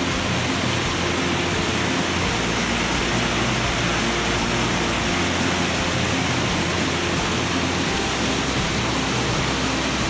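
Triberg waterfall cascades rushing over mossy boulders close by, giving a steady, unbroken roar of falling water.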